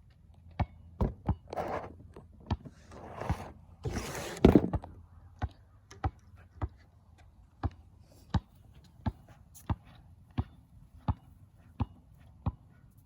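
Rustling noise for the first few seconds, loudest just before five seconds in, then a steady series of sharp knocks, about one every 0.7 seconds.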